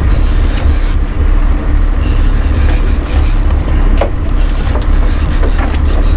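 A fishing reel on a heavy offshore rod whirs in spells of about a second, with short pauses, as a fish is fought and line is cranked in. A heavy, steady low rumble of wind buffeting the microphone runs underneath.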